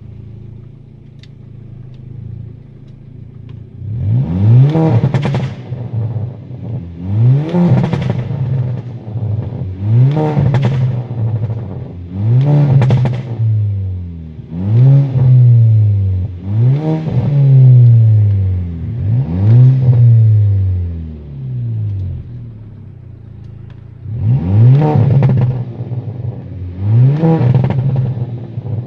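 Turbocharged 2.0 TFSI four-cylinder idling, then blipped about nine times, every two to three seconds, with a short lull before the last two. Each time the pitch rises and falls back, and the exhaust crackles and pops on the overrun, a pop-and-bang effect from a tuned Bosch MED9 engine map.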